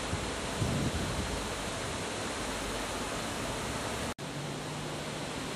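Steady rushing wind noise on the microphone. It cuts out for an instant about four seconds in, after which a low steady hum joins it.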